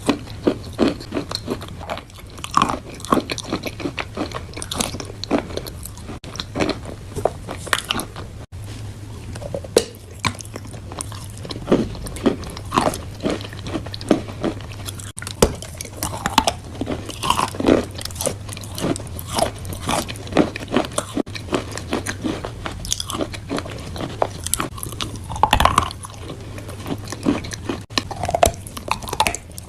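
Close-up biting and chewing of crunchy chalk and clay: a dense, irregular run of crisp crunches, several a second, over a low steady hum.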